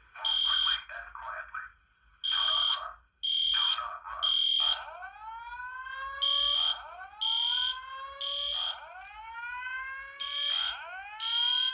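Fire alarm horn sounding the code 3 temporal pattern in loud half-second beeps. Under it a Simplex TrueAlert speaker plays a recorded evacuation message for the first few seconds, then slow rising whoop tones, each about two seconds long.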